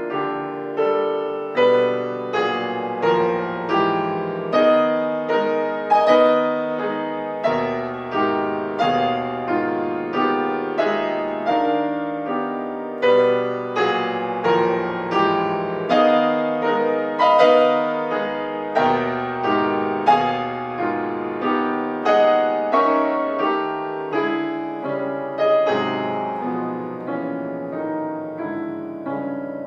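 Solo grand piano playing classical music: chords struck about once a second, each ringing and dying away, with a moving line of notes above them.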